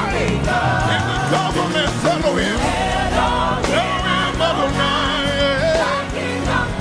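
Live gospel worship music: voices singing over a backing band, at a steady loud level.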